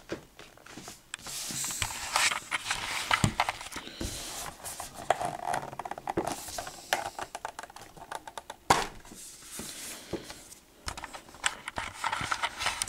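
A Blu-ray steelbook case being handled and opened: irregular clicks, taps and scrapes of fingers on the metal case and the plastic disc tray, with light rustling of the paper inserts.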